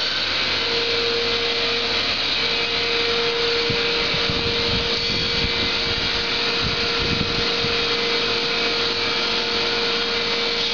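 Milk-processing plant machinery running: a steady, loud mechanical hiss with a steady hum-tone. Some low, irregular rumbling comes through in the middle.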